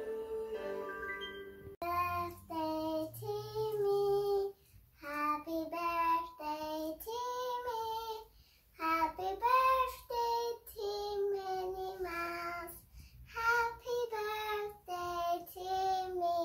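A young child singing a song alone, in short phrases with brief pauses between them. A bit of instrumental music plays at the start, cutting off about two seconds in just before the singing begins.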